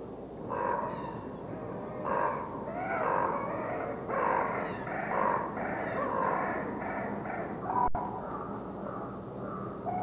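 A rapid series of animal calls, about a dozen in some seven seconds, that stops about eight seconds in.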